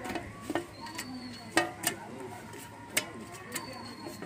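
Irregular clicks and knocks of a whole fish and a hand against a steel plate as the fish is rubbed in a wet spice marinade, the loudest knock about one and a half seconds in. A bird whistles faintly twice in the background.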